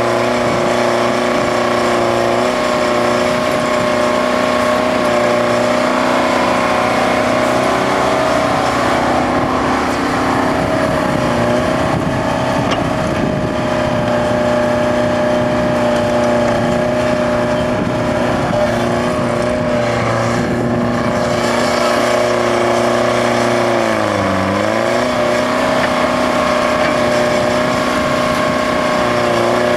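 Detroit Diesel 4-71 two-stroke diesel engine of a Bucyrus-Erie 20-H excavator running steadily at working speed while the machine digs and loads. About three-quarters of the way through, its pitch briefly dips and comes back up as it takes a load.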